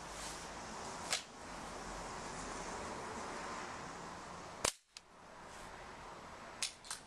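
Sharp cracks of a break-barrel pellet gun being fired and pellets striking an old Compaq Presario V2000 laptop: one about a second in, a louder one near the middle, and a quick pair near the end.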